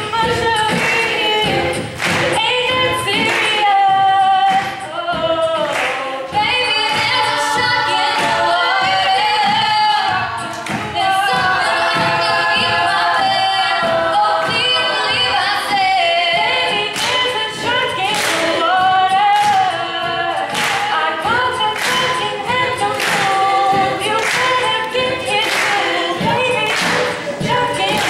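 All-female a cappella group singing in layered harmony over a steady percussive beat.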